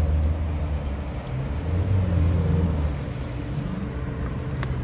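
Ferrari mid-engined V8 supercar driving slowly past at low revs, its exhaust giving a low drone that swells and rises in pitch about two seconds in, then eases off.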